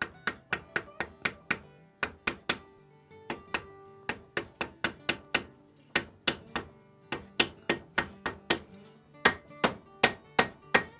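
A hammer tapping a glued wooden wedge into the kerf at the top of a hickory axe handle seated in the eye of a double bit axe head. Many quick, sharp taps, roughly three a second in uneven runs, starting the wedge.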